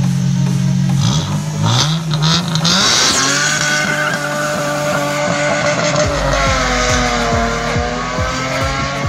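1974 Toyota Mark II with a 3000cc engine revving up hard about a second in, then its rear tyres squealing in a long, wavering screech as it launches away.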